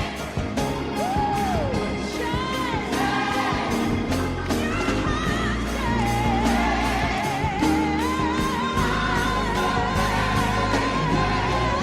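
Gospel music with singing over a steady beat; from about six seconds in a voice holds a long wavering note.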